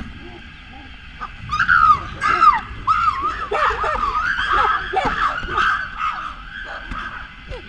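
Chimpanzees calling: a rapid series of short high calls that rise and fall in pitch, starting about a second in and going on for several seconds.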